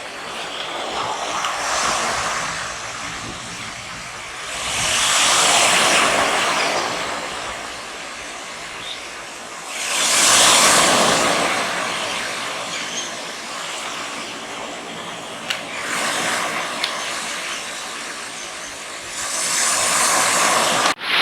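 Waves breaking on the shore, a rushing surge that swells and fades about every four to five seconds.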